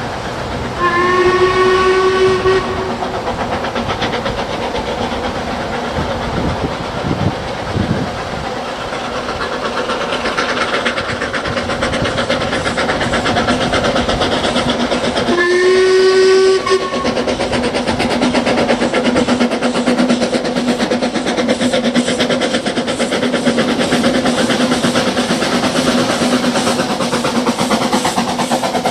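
Narrow-gauge steam locomotive whistle sounding two blasts, each a second or two long, about a second in and again about fifteen seconds in, over the steady running and rail clatter of the train.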